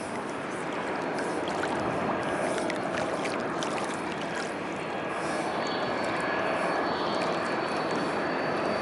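Choppy sea water splashing and lapping close by, under the rising noise of an approaching Boeing 747's jet engines; a steady high whine comes in about halfway and the noise keeps growing louder.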